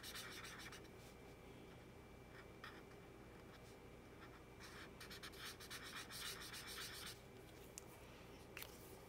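A felt-tip marker scrubbing quickly back and forth on paper as an area is coloured in. The faint scratchy strokes come in short stretches with pauses.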